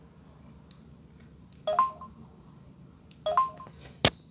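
Samsung Propel (SGH-A767) cell phone giving two short electronic chirps, each a quick run of a few notes, about a second and a half apart, followed by a sharp click near the end.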